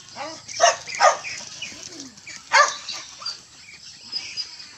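A dog barking: three sharp barks in the first three seconds, with softer calls between them.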